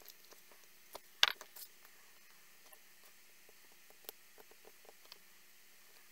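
Small plastic clicks and taps from handling a glue bottle and a diamond-painting pen picking rhinestones out of a plastic tray, with one sharper click about a second in.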